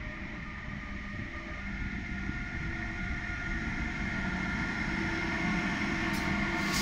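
A freight train of container wagons, double-headed by two locomotives, approaching and passing close by: a steady rumble and hum of locomotives and wheels on rails, growing louder. A brief high hiss comes about six seconds in and again at the very end.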